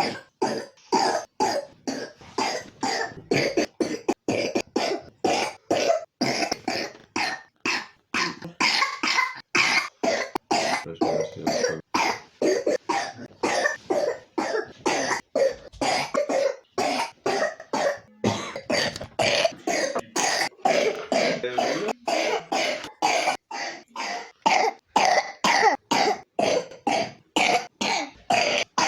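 A three-year-old child with pneumonia coughing over and over: short coughs following one another at about two a second, with only brief gaps.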